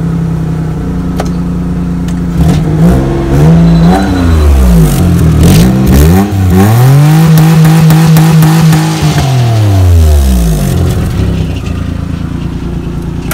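Maruti 800's three-cylinder petrol engine idling, then revved through its custom valvetronic exhaust with the muffler fitted. A few quick revs come about two to six seconds in, then a longer held rev that drops back to idle about eleven seconds in.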